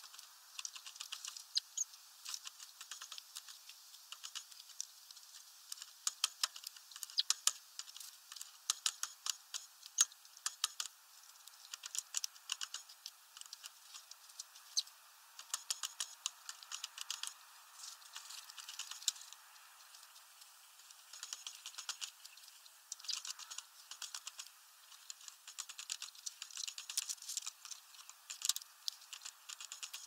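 Great tit pecking at a lump of suet in a wire spiral feeder: irregular flurries of sharp, thin clicks and taps.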